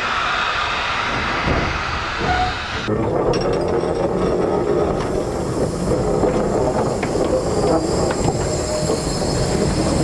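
A steady hiss, which changes abruptly about three seconds in to a steam locomotive rolling slowly past on rails: wheels and running gear rumbling, with occasional clanks and a faint squeal.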